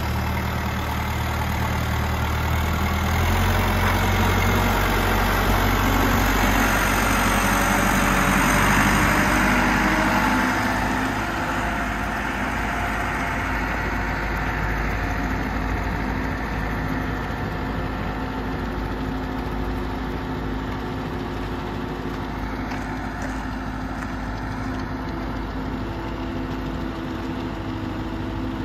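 Caterpillar 444E backhoe loader's four-cylinder diesel engine running as the machine drives past, loudest in the first ten seconds, then quieter as it moves away.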